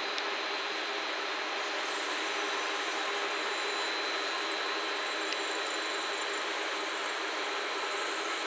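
N700 series Shinkansen train rolling slowly past on elevated track as it pulls into the station, a steady running noise. A faint high whistle joins it about two seconds in.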